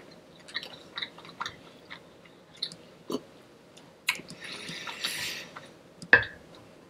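A person chewing and biting food close to the microphone: scattered short wet mouth clicks. There is a longer noisy stretch of about a second, beginning about four seconds in, and a sharp click just before the end.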